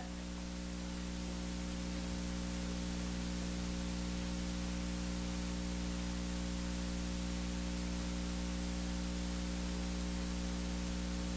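Steady electrical hum in several pitches over a hiss, with no speech: the noise floor of the church's sound system or recording. It swells slightly over the first couple of seconds, then holds.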